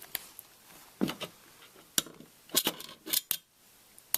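Screwdriver and small screws being worked into a computer's mounting holes: a handful of sharp metallic clicks and clinks, spaced irregularly, with brief scrapes between them.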